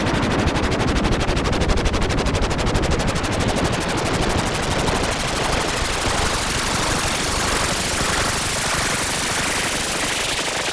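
Synthesized sci-fi sound effect: a rapid, evenly pulsing rattle like automatic fire that carries on without a break. The noise under it brightens and rises in pitch as it goes.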